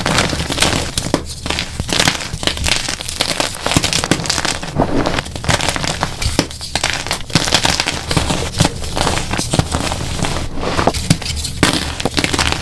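Dyed gym chalk blocks crushed in the hands, one after another, crumbling with dense dry crunches and crackles.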